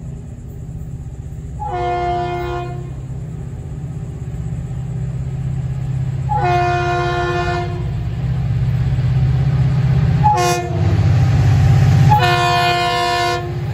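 Diesel locomotive multi-chime horn sounding the grade-crossing signal: two long blasts, one short and a final long blast, over the low rumble of the approaching train, which grows louder toward the end.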